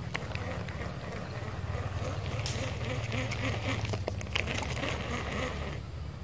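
Baitcasting fishing reel being cranked, a continuous whirring, clicking retrieve of the line that stops abruptly a little before the end. Wind rumbles low on the microphone throughout.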